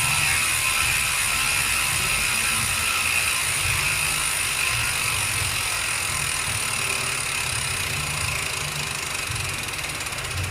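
Maxzone Stroke 1.0 rear bicycle hub with only three pawls freewheeling: a fast, loud ratcheting buzz that slowly fades.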